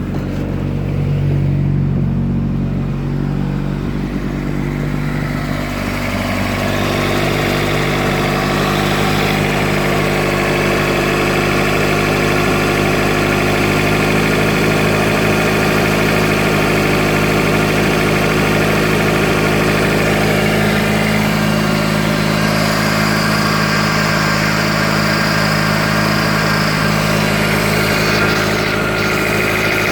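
Honda F20B four-cylinder engine running steadily with its timing belt area exposed; its sound grows louder and fuller about six seconds in, then holds steady.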